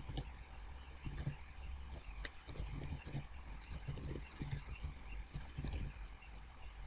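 Typing on a computer keyboard: quick, irregular key clicks over a faint low hum.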